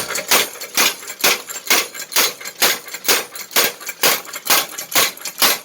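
Homemade power hammer, built from a four-ton arbor press with a Jeep leaf-spring arm, running and striking steadily at about two blows a second, each blow a sharp metallic strike with a brief ring.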